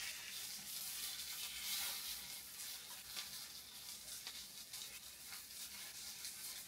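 Takoyaki sizzling in an electric takoyaki pan as the balls are turned with metal picks: a steady frying hiss with a few faint ticks.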